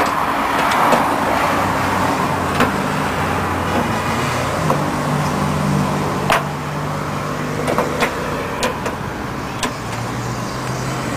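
Plastic projector headlight housing being pushed into its mounting on a pickup's front end, giving a few sharp clicks and knocks, over a steady hum of engine and traffic noise.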